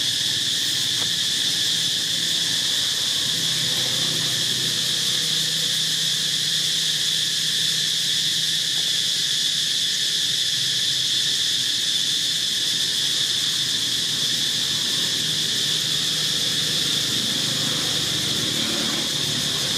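Insect chorus droning steadily at one high pitch, unbroken throughout.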